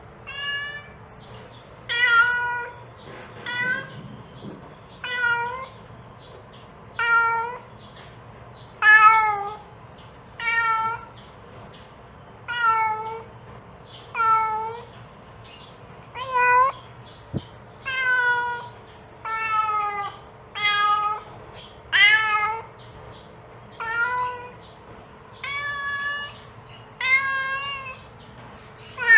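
A mother cat calling her kittens with a long string of meows, one about every second and a half, each call bending in pitch.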